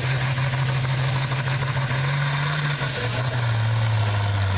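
International Harvester pulling tractor's turbocharged diesel engine running hard under load against the sled, with a high turbo whistle over it. About three seconds in, the engine note and the whistle both start falling in pitch as it throttles back at the end of the pull.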